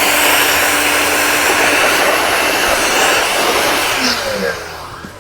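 Electric blower running with a loud, steady rush of air and a motor hum that stops about two seconds in. The noise fades out near the end.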